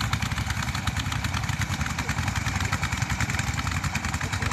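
An engine running steadily at a constant speed, a fast, even chugging with no change in pace.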